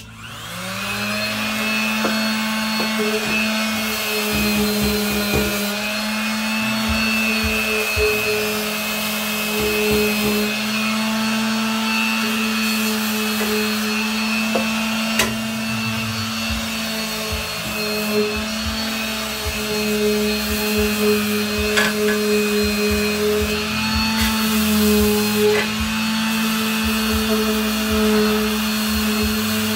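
Electric sander starting up and sanding rust off a steel truck step rail: the motor's hum rises in pitch over the first second, then runs steadily under a gritty hiss, with a few sharp clicks as the pad catches the metal.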